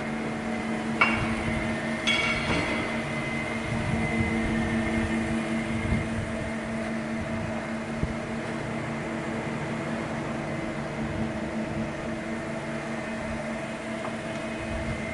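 Mori Seiki MV-35/40 CNC vertical machining center powered up and running: a steady electric hum with a high whine that comes in about two seconds in. Two sharp clicks sound about one and two seconds in.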